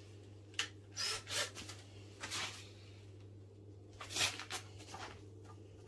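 Hands scraping and rubbing at crumbly, set concrete around the base of a sink mould: several short scrapes, over a faint low steady hum.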